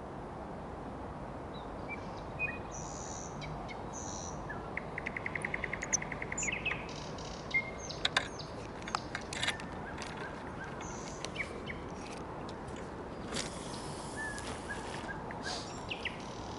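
Nightingale singing: a varied song of whistles and sharp clicks, with a fast rattling trill of evenly repeated notes about five seconds in, over a steady background hiss.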